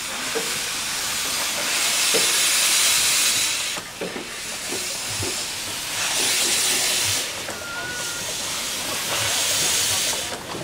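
15-inch gauge steam locomotive pulling away slowly with its cylinder drain cocks open: steam hisses throughout, surging loudly three times, every few seconds, with light clicks in between.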